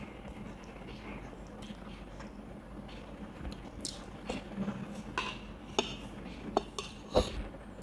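Cutlery clinking against dishes: a scatter of light, sharp clicks starting about halfway through, the sharpest near the end.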